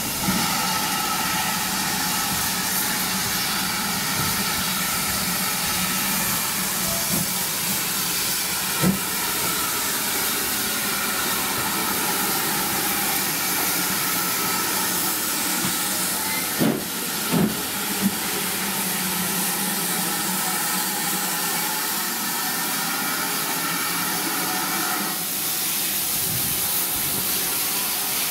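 Steam locomotive 1501, a GWR 1500 class pannier tank, hissing steam steadily while standing at a platform. The hiss changes tone about 25 seconds in, and a few short metallic knocks come at about 9 seconds and again around 17 seconds.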